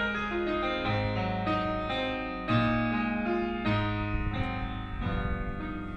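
Piano music played back through a 1940s Kofler Radio Bassano cinema tube amplifier and its speakers: a run of struck notes over lower bass notes.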